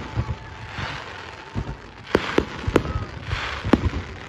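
Fireworks display: a light crack early, then several sharp bangs in the second half, with a hissing crackle between them.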